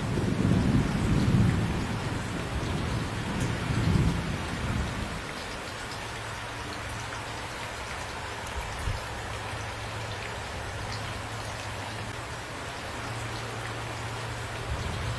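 Steady rain falling, with a low rumble of thunder through the first five seconds that swells twice before dying away into the rain.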